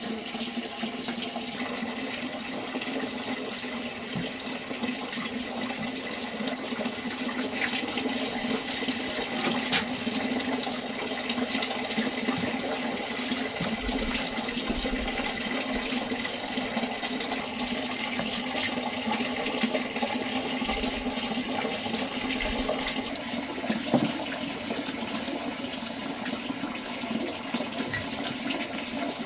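Steady rush of running water, with a few light clicks of chopsticks and bowls.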